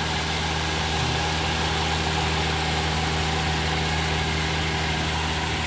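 A 2008 Daihatsu Terios's 1.5-litre four-cylinder petrol engine idling steadily, heard from over the open engine bay.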